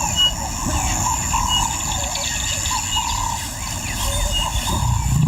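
Bush ambience: a steady high-pitched insect drone, a short chirp repeating about every second and a half, and birds calling, over a low rumble.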